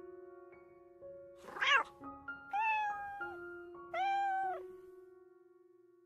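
A cat meows twice, about two and a half and four seconds in, each meow high and lasting just over half a second. A short warbling squeak comes before them. Gentle piano music plays throughout.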